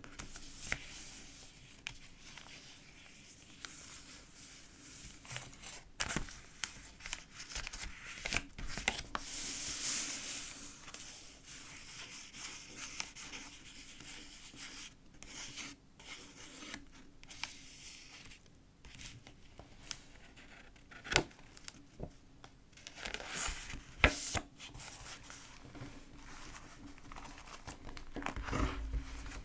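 Paper pages of a thick, collage-filled journal being turned and handled, rustling and crinkling, with a few sharper snaps of paper.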